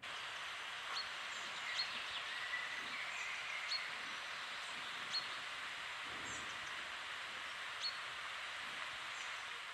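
Forest ambience: a steady hiss with a bird giving short, sharp chirps about once a second.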